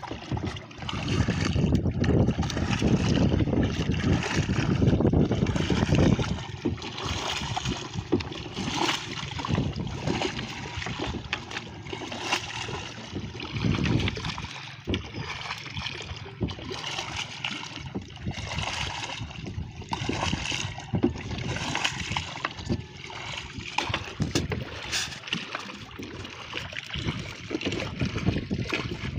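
Water splashing as a wooden paddle dips in repeated strokes beside a small outrigger boat, about one stroke every second or so. Wind rumbles on the microphone, strongest in the first few seconds.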